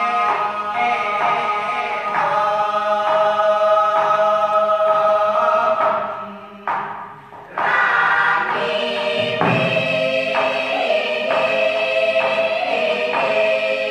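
Student choir singing in parts, in short, evenly spaced chords. The sound breaks off briefly about six and a half seconds in, then the singing resumes.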